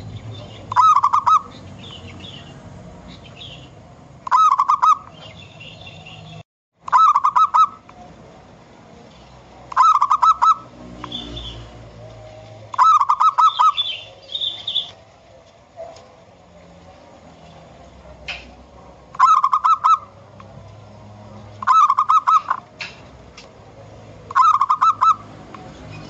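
Zebra dove (perkutut) cooing: a short, rapid staccato run of coos repeated eight times, about every three seconds, with a longer pause about two-thirds of the way through. Fainter high chirps of small birds come in between the phrases.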